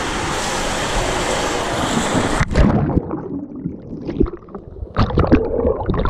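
Rushing water in an enclosed water slide tube, a steady hiss as the rider slides down, cut off about two and a half seconds in by a splash as he drops into the pool and the camera goes underwater. Then muffled underwater gurgling and bubbling, with splashing near the end as he comes up.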